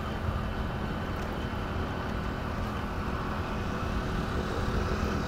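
Steady wind rush and a motorcycle engine running at road speed, heard from a fur-covered microphone inside a rider's helmet with the visor open.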